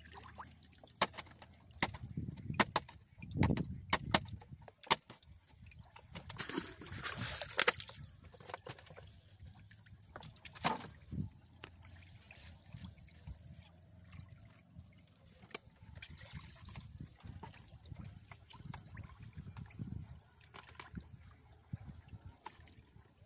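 Water trickling and splashing from a bamboo fish trap as it is lifted and emptied into a wooden boat, with a louder rush of water about a third of the way in. Scattered sharp knocks and clicks of the trap and boat being handled run through it.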